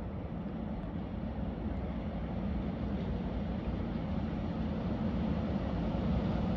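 Freight train approaching, a steady low rumble that grows slowly louder.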